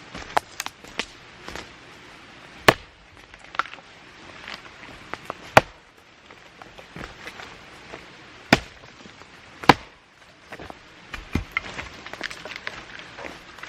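Dry dead wood being struck and broken, with four loud sharp cracks a few seconds apart and lighter snaps and crackles between them.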